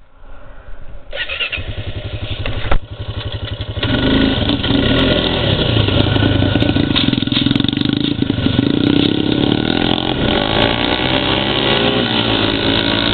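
Mini chopper motorbike engine starting and running, mixed with the running engine of the ATV that follows it. A sharp click comes about three seconds in, the sound gets louder about a second later, and later the engine pitch rises and falls as the bike is ridden off.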